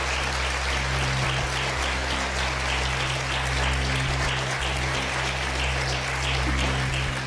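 Studio audience applauding, with a low steady hum underneath.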